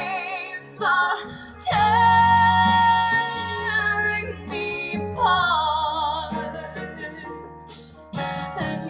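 A recorded song played over hi-fi loudspeakers: a woman singing long, wavering held notes over a low instrumental accompaniment, with short breaks between phrases.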